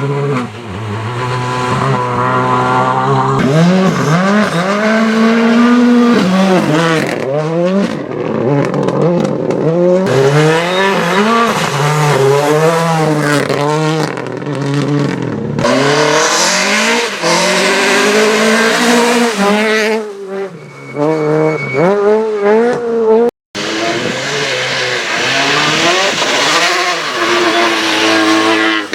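Rally cars at full throttle, engines revving hard with pitch climbing and dropping again and again through gear changes, as cars pass. The sound breaks off abruptly for an instant about two-thirds of the way through.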